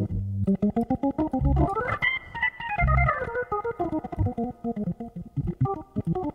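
Hammond B3 organ being played: quick runs of notes climb for about a second and a half, then wind back down, over short low bass notes.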